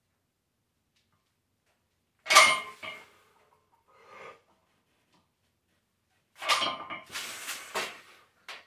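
A man squatting with a loaded barbell in a power rack: a sharp, loud burst a little over two seconds in, a faint short one around four seconds, and a run of sharp sounds near the end. These could be forceful breaths or the bar and plates knocking.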